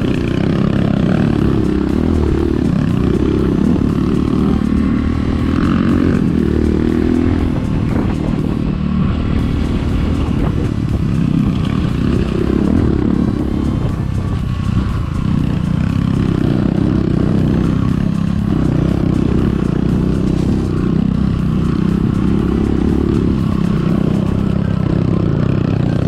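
Enduro motorcycle engine running while riding, its pitch rising and falling as the throttle opens and closes.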